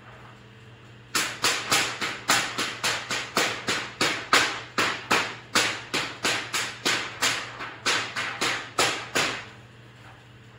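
Epson P405 DTF inkjet printer printing: its print-head carriage shuttles back and forth about three to four passes a second, each pass a sharp stroke that fades quickly. The run starts about a second in and stops near the end.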